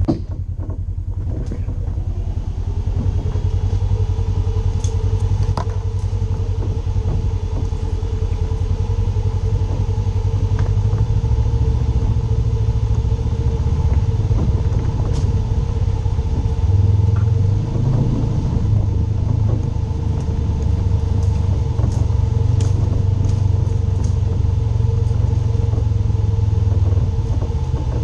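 Polaris RZR 900 side-by-side's twin-cylinder engine running steadily while driving a rough trail, over a heavy low rumble, with scattered short clicks and rattles.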